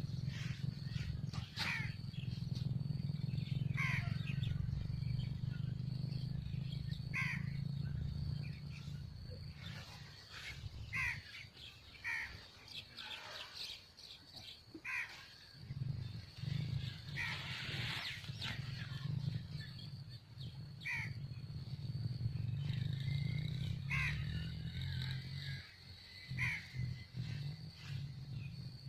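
A crow cawing over and over, one short call every second or two, over a steady low rumble that drops out for a moment about halfway through.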